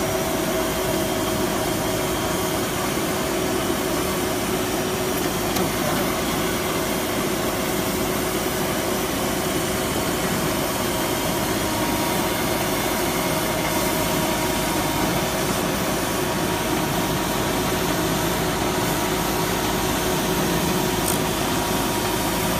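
CGR-155 compact drill rig running steadily at constant power, a continuous machine noise with a few steady tones held throughout.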